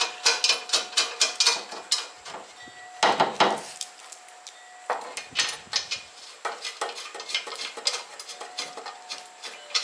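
Irregular metallic clicks and clinks of steel bolts and washers being fitted through the top edge of a car's steel front mudguard and its mounting bracket, with a louder run of knocks about three seconds in.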